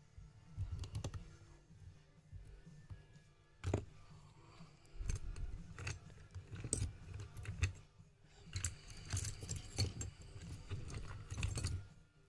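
Small metallic clicks, scrapes and rattles of lock-picking tools working at a solid-brass pin-tumbler padlock, coming in irregular clusters with low handling bumps.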